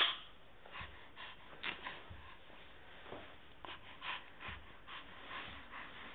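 A baby breathing and snorting right at the microphone in short, scattered breathy puffs, with small clicks in between.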